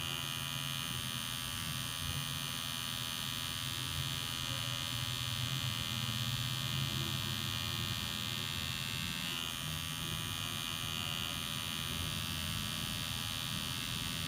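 Electric tattoo machine buzzing steadily as its cartridge needle lines the stencil outline in skin, with a slight shift in its tone about nine seconds in.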